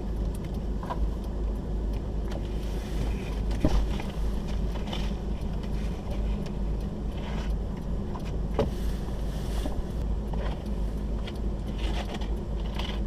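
A car running with a steady low rumble, with scattered small clicks and knocks.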